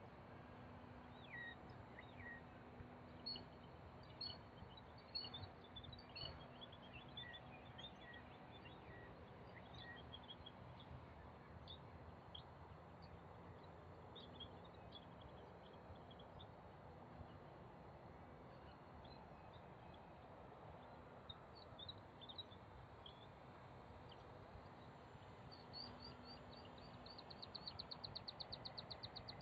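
Faint outdoor quiet with scattered short bird chirps, and a rapid bird trill near the end.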